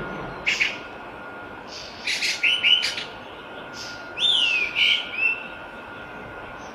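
Island thrush (jalak lawu) singing: bursts of short chirps and whistled notes that slide downward, about half a second in, around two to three seconds, and again around four to five seconds. A faint steady tone runs underneath.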